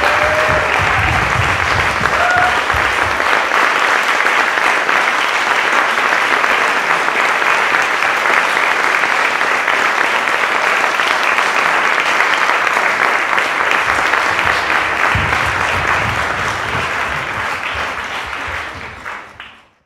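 Audience applauding steadily after a live performance, with a few short calls near the start; the clapping fades out near the end and cuts to silence.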